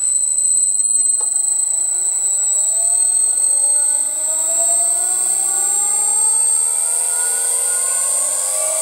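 An old lathe's electric motor run up by an NF-9000 variable frequency drive with its carrier set to 8 kHz. A steady high-pitched whistle at the carrier frequency sits over motor tones that rise steadily in pitch as the drive ramps the speed up toward 50 Hz.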